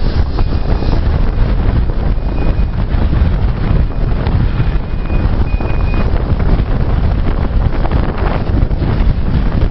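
Strong wind buffeting the microphone: a loud, steady, low rumble with no breaks.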